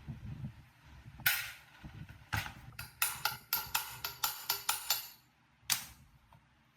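Sharp knocks or taps, struck in a quick run of about four or five a second for roughly two seconds, with a few single strikes before and after.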